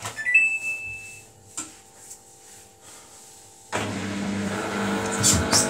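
Samsung WF80F5E0W4W washing machine's control panel beeping as a button is pressed: a short rising chime, then one held beep. A faint steady hum follows, and about three and a half seconds in the drum motor starts suddenly and runs with a loud whir. Two sharp knocks come near the end as the drum begins its service-mode spin.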